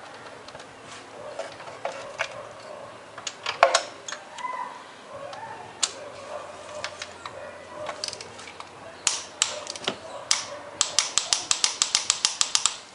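Hand tools at work on a car engine during reassembly: scattered metallic clicks and knocks, then a quick, even run of clicks, about nine a second, over the last two seconds.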